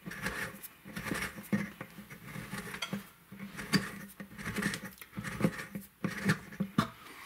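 Tapered hand reamer turned back and forth in a bridge-pin hole in a wooden guitar bridge, with irregular scraping and light clicks as it cuts. The hole is being widened and chamfered so the bridge pin will fit.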